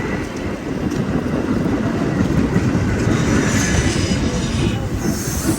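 Metra commuter train moving along the track, a steady loud rumble with wheels clattering over the rails.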